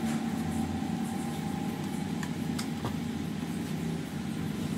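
A steady low engine drone, like a motor vehicle running, with a few faint clicks about two to three seconds in.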